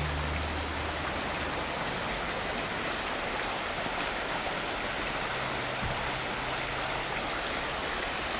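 Shallow stream running over stones: a steady rush of water, with a faint low hum fading out in the first second or two and coming back briefly later.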